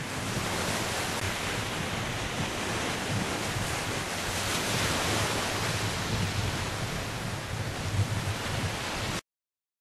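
Ocean surf washing onto a sandy beach, a steady rushing with wind buffeting the microphone, cutting off abruptly near the end.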